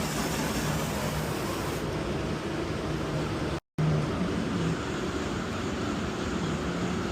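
Steady hum of running HVAC machinery, with a low tone under a constant rush of air. It cuts out for a moment about three and a half seconds in, then carries on.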